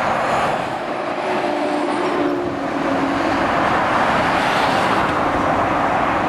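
Motorway traffic passing: a steady noise of tyres and diesel lorry engines on the road surface, with a low engine hum that drops in pitch about two seconds in as a truck goes by.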